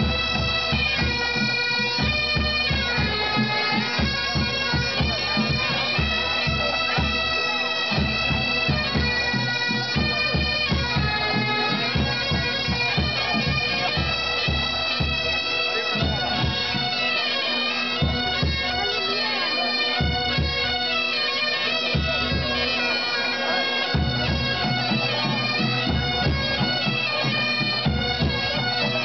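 A pipe band of several Highland-style bagpipes playing a tune together over their steady, unbroken drones.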